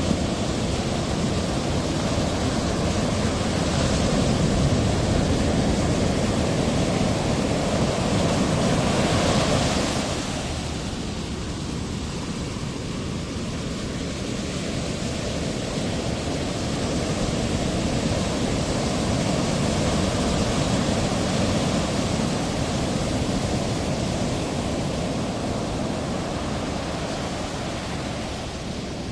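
Steady rush of breaking ocean surf and waves, a little louder for the first ten seconds or so before easing slightly.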